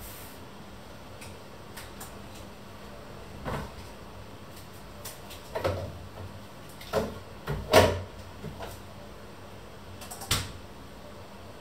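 Scattered knocks and clunks of kitchen handling, such as cupboard doors and items being set down. There are about six, spread out, and the loudest comes just before eight seconds in.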